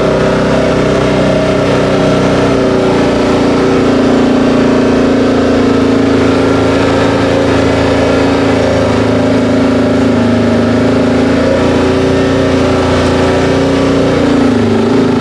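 Vehicle engine running at a steady speed while driving, heard from on board. Its note drops a little near the end.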